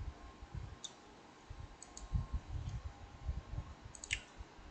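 A few sharp computer mouse clicks, about a second in, around two seconds in and near the end, over repeated soft low thumps that are louder than the clicks.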